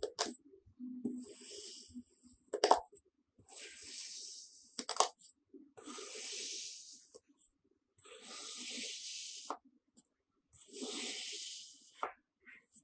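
Kitchen knife slicing through a block of kinetic sand, about five slow cuts in a row, each a crumbly hiss about a second long. A few cuts end in a sharp tap as the blade meets the wooden board.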